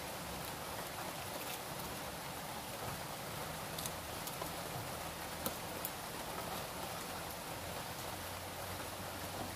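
Steady rain falling, with scattered drops tapping on the house.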